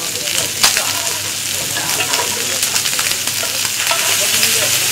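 Chopped meat frying in hot oil in a flat pan: a steady sizzling hiss with scattered crackles and pops, the sharpest pop just over half a second in, growing a little louder near the end.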